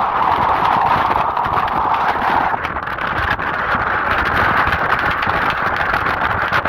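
Strong wind buffeting the camera microphone: a loud, continuous rush with low rumble. Its pitch rises a little about two and a half seconds in.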